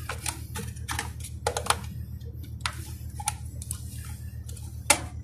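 Irregular small clicks and taps of a locking screw and fittings being pushed into the plastic EPIRB release bracket by hand, with one sharper click near the end. Under it runs a steady low hum.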